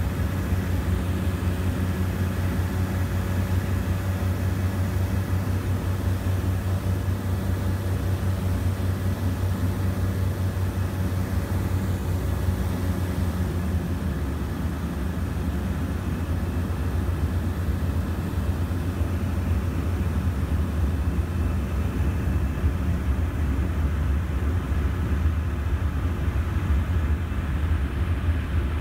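Cabin noise of a de Havilland Canada DHC-6 Twin Otter in flight: a steady drone from its twin turboprop engines and propellers, with a low hum and a few steady tones above it.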